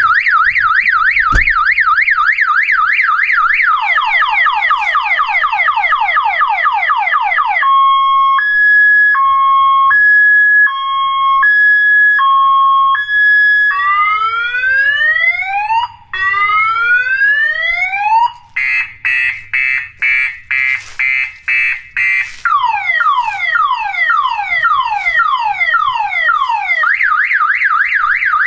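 Loud electronic emergency siren alarm on a camper trailer cycling through its tones: a fast up-and-down yelp, then quick falling sweeps, a two-tone hi-lo, two long rising whoops, a choppy pulsing tone, a run of falling sweeps, and back to the fast yelp near the end.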